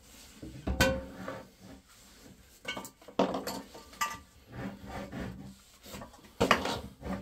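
Ceramic toilet bowl being lowered and shifted into place on a wooden floor: scattered knocks and scrapes of porcelain against the floor and its fixing brackets, with a sharp knock about a second in.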